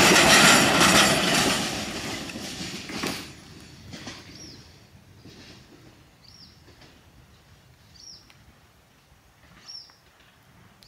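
Freight wagons loaded with eucalyptus logs rolling past on the rails as the end of the train goes by, the wheel noise dying away within about three seconds, with a few fainter knocks after. Then a bird repeats a short, high, falling chirp several times, about every second and a half.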